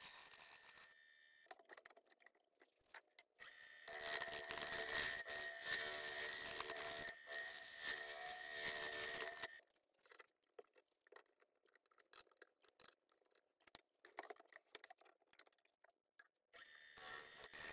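Woodturning gouge cutting cured resin on a spinning lathe: a steady scraping hiss with a thin high whine that runs for about five seconds in the middle, then stops, leaving only faint scattered crackles.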